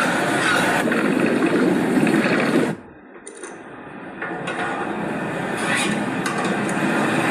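Film sound effects of clanking, scraping machinery. They cut off abruptly a little under three seconds in, then build back up more quietly.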